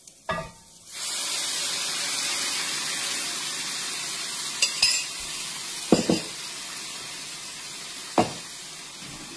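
A mix of tomato sauce, beef bouillon and water is poured into a hot pan of sautéed onion and bell pepper. It hisses loudly as it hits, about a second in, then settles into a steady sizzle that slowly eases. A few sharp clinks of the pouring vessel and utensil against the pan come through it.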